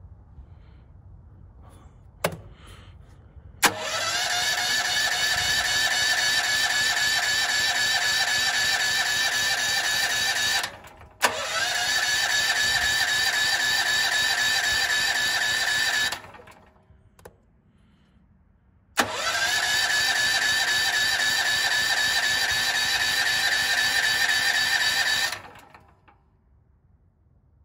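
Firman generator's electric starter cranking the engine in three long attempts of about five to seven seconds each, each opening with a click and a short rising whine, then stopping abruptly; the engine does not catch on natural gas.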